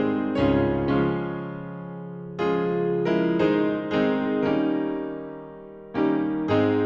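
Piano music: slow chords struck one after another, a few of them held and left to ring and fade for a second or two before the next.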